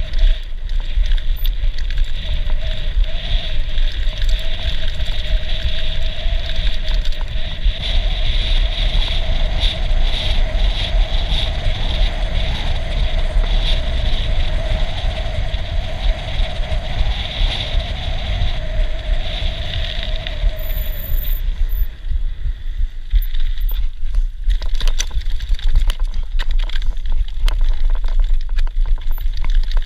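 Mountain bike riding with wind buffeting the action-camera microphone and tyre and frame noise from the trail. A steady whine runs until about two-thirds of the way through, then stops, and rattling knocks come from the rough grassy track.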